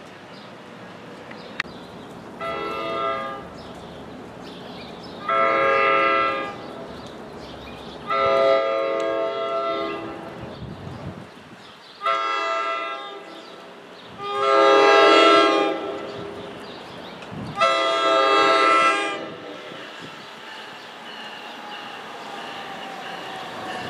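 Approaching NJ Transit train sounding its multi-note air horn six times, each blast a chord lasting one to two seconds, with the last blasts loudest as it nears.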